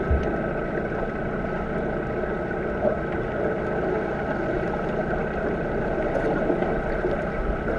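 Underwater pool noise heard through a submerged camera: a steady, dense churning rush of water from finned swimmers kicking and grappling, with a faint steady high hum underneath and a couple of soft thumps.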